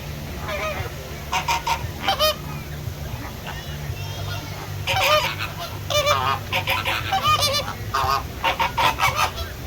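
A flock of flamingos calling: many short, honking calls, overlapping in clusters, over a steady low hum.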